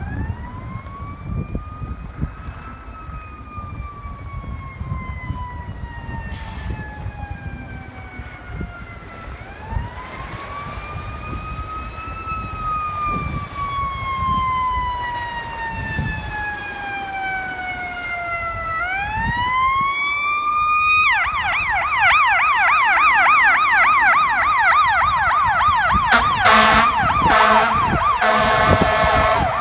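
Fire truck siren on wail, two long slow rise-and-fall cycles, switching about two-thirds of the way through to a fast yelp and growing louder. Air horn blasts twice near the end over the yelp, with a low traffic rumble underneath.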